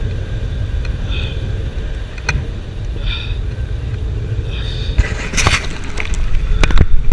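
Strong wind buffeting the microphone of a camera worn while parasailing, a steady low rumble, with a few sharp knocks and rustles near the end.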